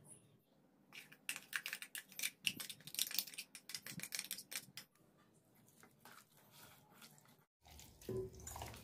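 A metal spoon scraping and tapping against the inside of a steel mixer-grinder jar while scooping out thick chilli-garlic paste, a run of quick irregular clicks and scrapes from about one to five seconds in. Near the end, soft sounds of the paste being worked into the chicken by hand.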